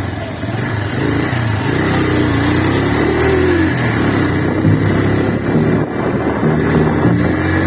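Motorcycle engine running while riding, its pitch shifting up and down with the throttle, recorded through a phone's microphone.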